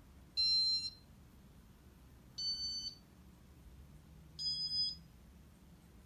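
Electronic control board of a Casablanca Spirit of Saturn ceiling fan beeping three times, about two seconds apart, each short tone a little higher than the last.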